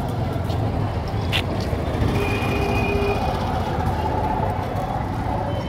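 Steady road-traffic rumble of a busy street, with a short click about a second and a half in and a brief thin tone near the middle.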